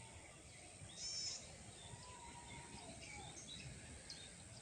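Faint outdoor background noise with birds chirping here and there, and one brief, louder high call about a second in.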